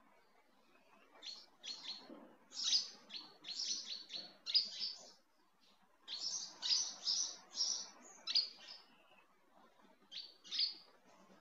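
A bird chirping in quick runs of short, high notes, with a pause of about a second midway.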